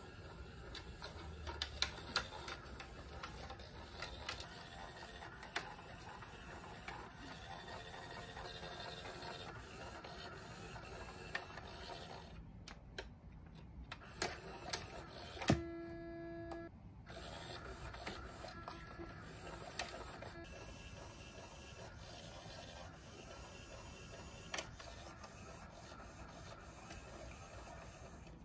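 Motorised star-shaped cat toy whirring as it spins a feather around inside its shell, with scattered sharp clicks and taps on the plastic. A short steady tone sounds about halfway through.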